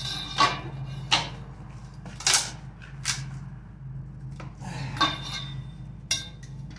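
Steel bar clanking against the steel base bars of a power hammer as it is levered to bend a kinked bar straight. About six sharp metallic clanks come at uneven intervals, the loudest in the first two and a half seconds.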